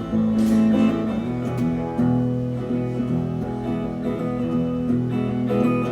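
Acoustic guitar strummed, playing the instrumental intro of a song, with the chord changing about two seconds in and again near the end.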